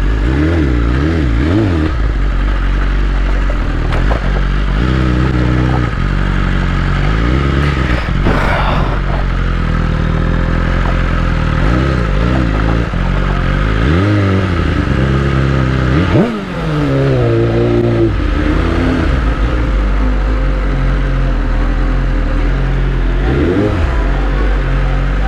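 BMW S1000RR's inline-four engine running at low speed, its pitch rising and falling with repeated throttle blips, and one quick, sharp rev about two-thirds of the way through.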